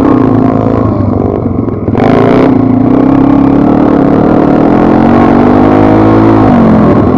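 Pit bike's single-cylinder four-stroke engine running under way off-road. The note drops and quietens about a second in, then surges back loudly as the throttle opens at about two seconds. It runs steadily at high revs after that, with a brief dip and rise in pitch near the end.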